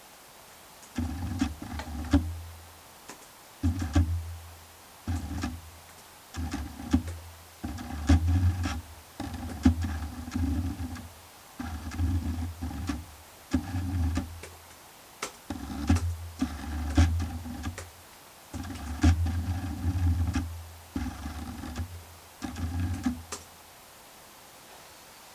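Background electronic music: short, repeated synthesizer notes about a second long with brief gaps between them, and sharp percussive clicks over the top.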